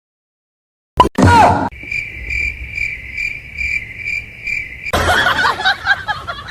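About a second of silence, then a short sound falling in pitch, followed by a cricket chirping in an even rhythm of two to three chirps a second for about three seconds. Near the end the chirping gives way to a noisy burst with voices.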